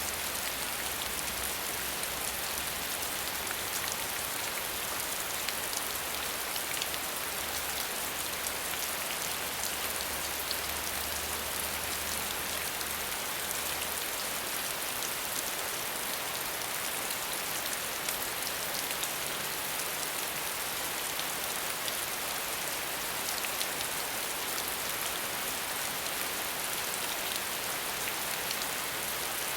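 Heavy rain falling steadily: a dense, even hiss scattered with countless small raindrop ticks.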